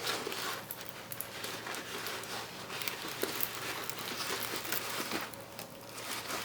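Handling of a plastic-covered diamond-painting canvas: irregular crinkling and rustling with small taps and clicks.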